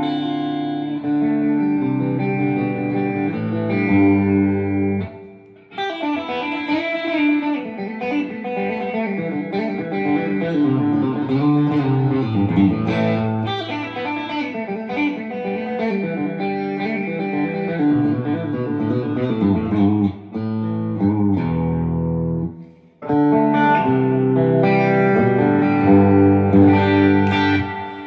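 Electric guitar with P90 pickups played through a ToneKing Royalist preamp into powered speakers: ringing chords and single-note lines, with two short breaks in the playing, about five seconds in and near the end.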